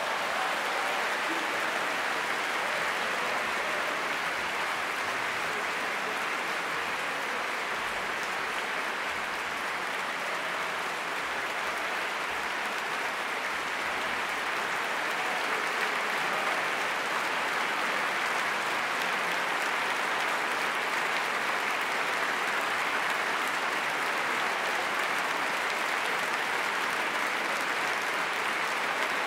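Large concert-hall audience applauding, a steady, even clapping that holds at one level throughout.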